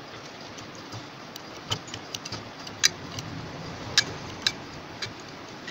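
Scattered sharp metallic clicks, about six of them at uneven intervals, from a tap wrench and thread tap being turned back out of a freshly re-threaded cylinder-stud hole in an aluminium motorcycle crankcase.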